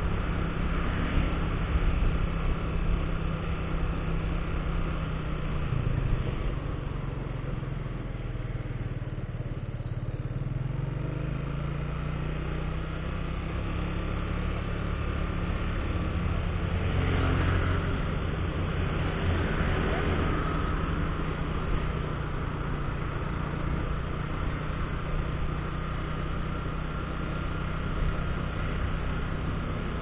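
Motorcycle engine running while riding, with steady wind and road noise. Its pitch rises for several seconds about a third of the way through as it picks up speed, and there is a louder stretch past the middle.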